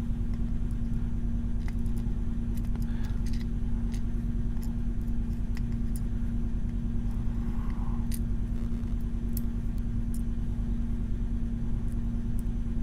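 Steady low electrical hum throughout, with scattered light metallic clicks and ticks of small lock pins and parts being handled.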